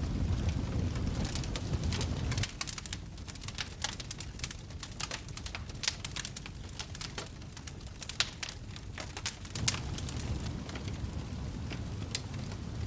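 Wood fire crackling in a fireplace, with many irregular sharp pops and snaps. A low rumble sits under the crackle at the start, drops away about two and a half seconds in, and comes back near the end.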